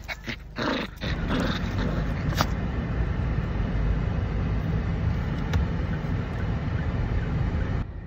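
Steady road and engine noise inside a moving car's cabin, starting about a second in. Before it, a few short clicks and scuffs around a small dog.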